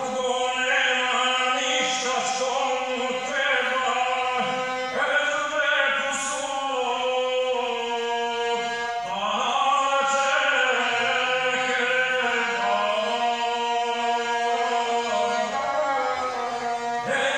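Serbian epic singing to the gusle: a man chants ten-syllable epic verse while bowing the single-string gusle, whose steady tone runs beneath his voice.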